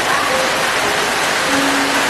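Steady rain falling, an even hiss, with a few soft held musical notes sounding one after another over it.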